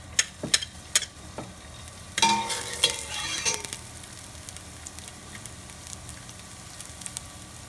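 Minced garlic sizzling in hot olive oil in a stainless steel pot, stirred with a metal spoon. A few sharp clinks come in the first second, a louder stretch comes about two seconds in, and then a steady, gentle sizzle.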